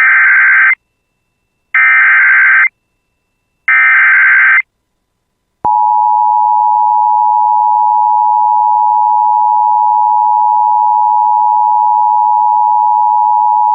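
Emergency Alert System tones: three short bursts of SAME header data, each about a second long and spaced about a second apart, then the two-tone attention signal, two steady tones sounding together for about eight seconds. They mark the start of a broadcast emergency alert, here a severe thunderstorm warning.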